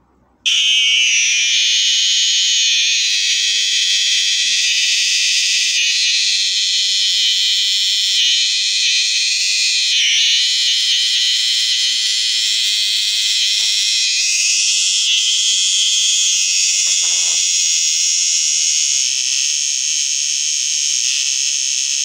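Large black Bornean cicada giving a loud, alarm-like buzz. The buzz is shrill and continuous, and it starts abruptly as a hand touches the insect.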